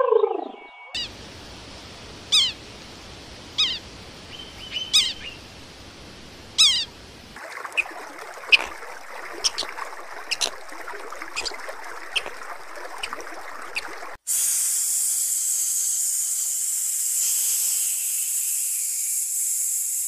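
Bird calls: about five short, sharp chirps that fall steeply in pitch, spread over the first seven seconds. Then comes a rushing noise with quick high chirps, and about two-thirds of the way in a loud, steady high hiss starts suddenly and takes over.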